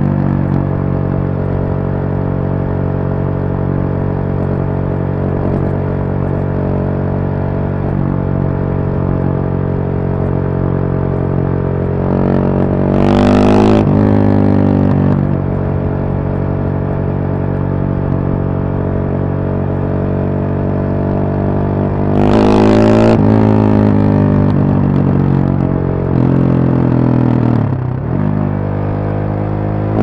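KTM 690 Supermoto's single-cylinder engine and exhaust cruising at steady throttle under wind noise. The engine note rises twice as the bike accelerates, about twelve seconds in and again about twenty-two seconds in, and each time it settles back to a steady drone.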